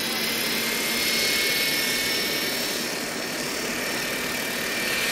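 Radio-controlled scale model Bell 47 helicopter running on the ground, its engine and main rotor giving a steady whine over a rushing hiss.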